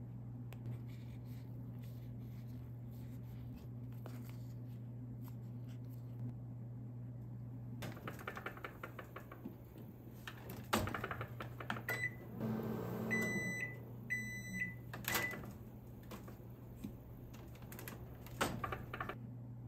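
A microwave oven being loaded and set: plastic clicks and handling noises as a tray goes onto the turntable plate, a few short electronic beeps from the control panel around the middle, and the door shutting with a knock near the end. A steady low hum runs underneath.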